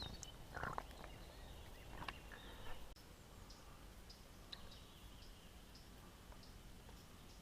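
Streamside ambience: small birds giving faint, short, high chirps over a low steady rumble, with a few sharp clicks and handling noises in the first three seconds before the sound drops abruptly to a quieter background.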